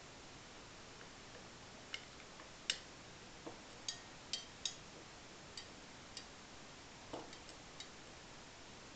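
Glass stirring rod clinking against the inside of a glass beaker: about a dozen light, irregular clinks, some with a brief high ring, the loudest close to three seconds in.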